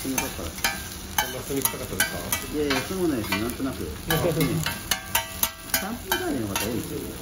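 Metal spatulas clacking and scraping on a hot iron teppan griddle, a sharp clack every second or so, while a mound of chopped green onions and vegetables sizzles as it is shaped.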